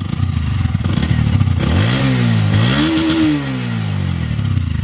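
Bajaj Pulsar NS125's single-cylinder engine idling, then revved up in two quick blips about two seconds in before falling back to idle. The owner presents this as the engine's normal sound, with no abnormal noise.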